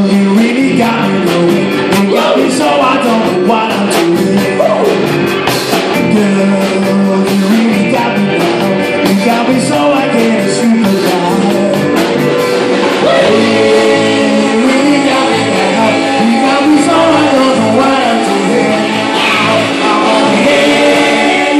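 Live band playing, with electric guitars and a drum kit, and vocals over it through the microphone. Busy cymbal strikes run through about the first half.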